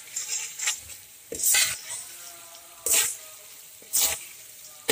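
A spoon scraping through mutton and masala frying in oil in a pan, in short strokes about once a second, with the oil sizzling between strokes: the meat being bhuna-fried until the masala clings to it.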